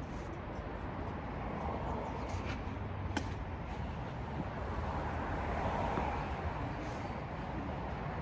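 Steady outdoor background noise, like distant road traffic, with one sharp tap about three seconds in.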